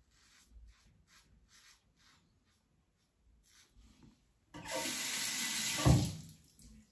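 Faint, short scraping strokes of an Edwin Jagger 3ONE6 safety razor with a Rapira blade cutting stubble through lather, a fraction of a second apart. Then tap water runs into the sink for about a second and a half while the razor is rinsed, with a knock near the end.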